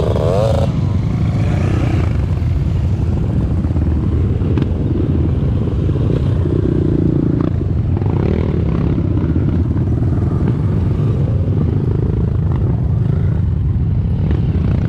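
Motorcycle engine running steadily, a continuous low rumble with no revving or pauses.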